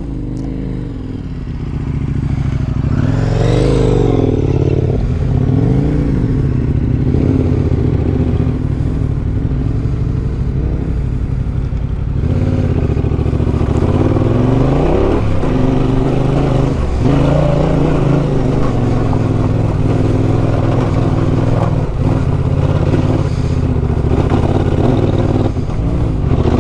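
Adventure motorcycle engine running on a steep rocky trail climb, its revs rising and falling several times.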